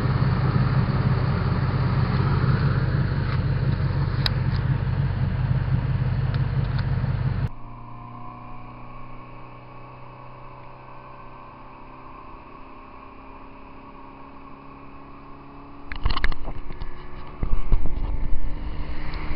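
Steady vehicle engine and road rumble, loud and even, for about seven seconds. It cuts off abruptly to a quieter motor hum with slowly shifting tones. Near the end come gusts of wind noise and knocks on the microphone.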